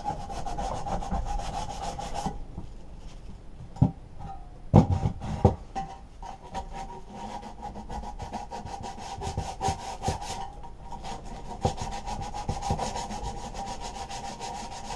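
Sandpaper rubbed by hand on the sheet-metal coil cover of a lawnmower engine, in quick back-and-forth strokes. About two seconds in the sanding stops, there are a few knocks, and then the strokes start again.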